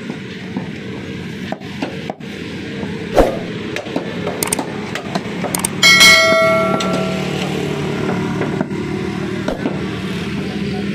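Butcher's knife cutting buffalo meat on a wooden log chopping block: a series of sharp knocks as the blade strikes the wood, one louder thwack a little after three seconds in. About six seconds in, a bell-like chime rings for about a second.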